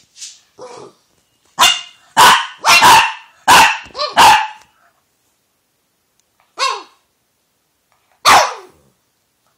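Boston terrier barking: a quick run of about six barks, then two single barks a couple of seconds apart. It is demand barking, meant to get the toy thrown.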